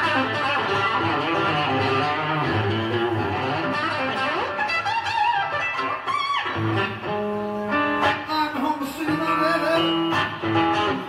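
Live electric guitar music: quick runs with notes sliding up in pitch, then longer held notes in the second half.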